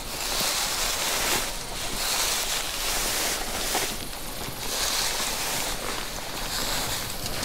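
Tall dry grass and clothing swishing in repeated swells as people step slowly through a field.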